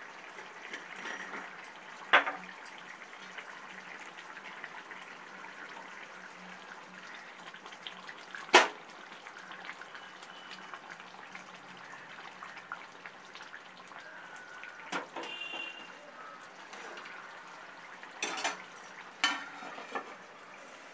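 Murrel fish curry simmering in a kadai, a steady bubbling hiss. It is broken by a few sharp metal clinks: the loudest is about eight seconds in, and several come near the end as a steel plate is set over the pan as a lid.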